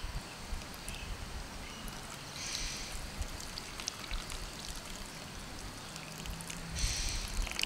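Hot water poured in a thin stream from a metal kettle into a stainless steel Sierra cup, trickling and splashing onto a block of freeze-dried soup, with two louder spells of splashing, about two and a half seconds in and near the end.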